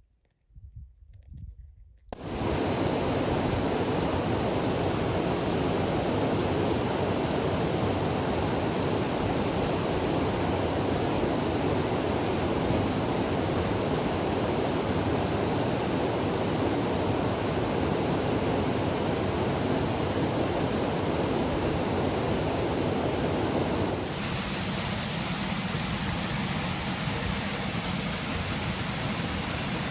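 Waterfall rushing, a steady even roar of falling water that cuts in abruptly about two seconds in. A little after three quarters of the way through, the rush turns slightly thinner and less full.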